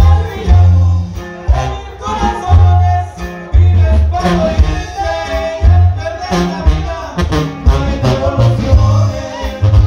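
Live norteño band music: accordion melody over a bouncing tuba bass line, played loud through a stage sound system.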